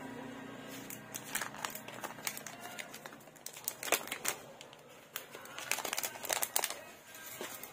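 Plastic retail packet of soft plastic fishing lures crinkling and crackling as it is handled, in irregular runs of small crackles.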